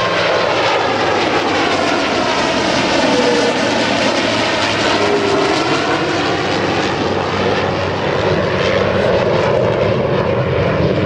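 A World War II P-51 Mustang's V-12 piston engine and propeller, together with an F-22 Raptor's jet engines, as the two fly past in formation. The result is a loud, steady rumble whose tone shifts slowly as they pass.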